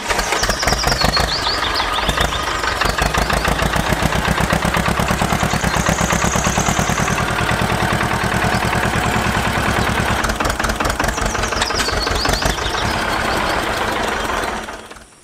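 Tractor engine running with an even, rapid chugging knock, fading out just before the end.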